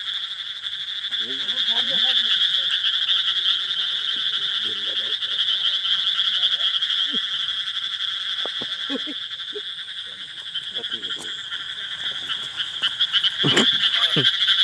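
Dense night chorus of many small animals chirping together, a steady high-pitched trilling that never lets up. Faint voices come through underneath now and then.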